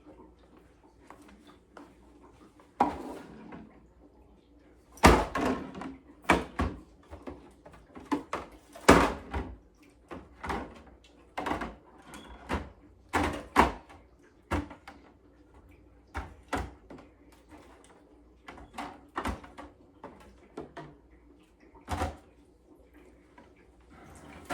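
A series of irregular knocks and clunks from handling a plastic can-dispenser tray, likely drink cans being set into it one after another, with the loudest knocks about five and nine seconds in.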